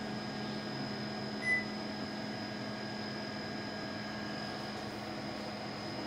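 A Panasonic CS-PC5MKJ split air conditioner's indoor unit gives a single short, high beep about a second and a half in, acknowledging the remote's command to switch on, over a steady hum.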